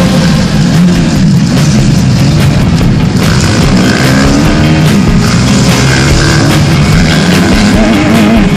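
Motocross bike engine heard onboard, its pitch rising and falling over and over as the rider accelerates and shifts along the dirt track, with background music mixed in.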